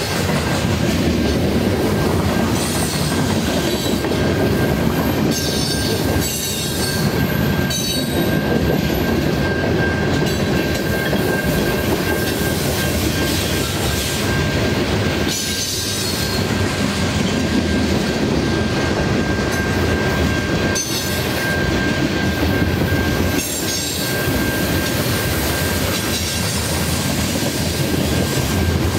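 Freight cars of a long freight train rolling past on a curve, their steel wheels rumbling and clattering over the rail joints. A steady high-pitched wheel squeal from the flanges grinding on the curved rail fades out near the end.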